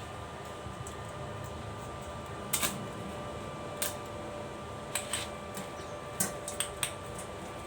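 Scattered sharp metal clicks and light taps, a few seconds apart, from iron welding work, over a steady electrical hum.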